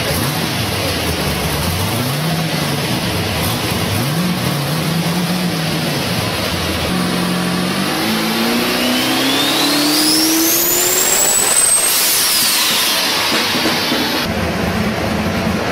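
Twin-turbocharged car engine on a chassis dyno: two short revs, then a long full-throttle pull whose pitch climbs steadily with a high turbo whistle rising alongside it, both falling away just after twelve seconds when the throttle closes.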